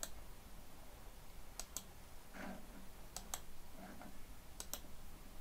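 Faint clicks of a computer mouse button, mostly in close pairs (press and release), three pairs about a second and a half apart.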